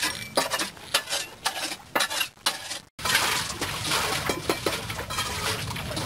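Sharp clinks and knocks of bricks and stones being handled and set in place by hand, in a rapid irregular scatter. The sound drops out briefly about halfway through, then goes on as a rougher steady noise with a few clinks.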